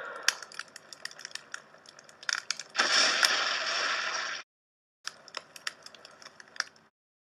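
Explosion sound effects: scattered crackles and clicks, then a dense burst of rushing noise about three seconds in that lasts over a second and stops abruptly, followed by more crackles.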